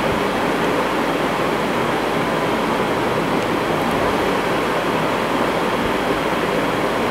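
Steady, even hiss of background noise with no other event.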